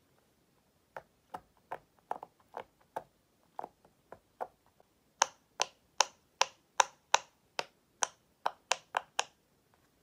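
Silicone pop-it fidget toy bubbles being pressed one after another, a series of pops about two or three a second. About five seconds in the pops turn louder and sharper, and they stop just after nine seconds.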